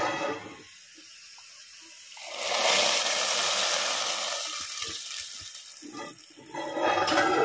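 A hot coconut-oil tempering of onion, fenugreek and curry leaves sizzles as it hits the curry. The hiss starts about two seconds in and dies away over a few seconds. There are shorter, louder noises at the start and near the end.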